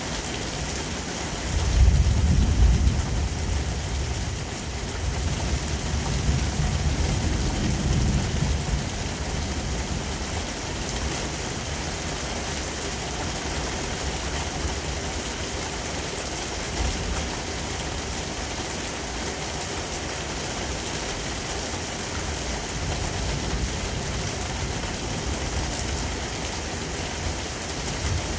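Steady rain of a thunderstorm, with a low rumble of thunder that starts about two seconds in, peaks at once and fades out over several seconds.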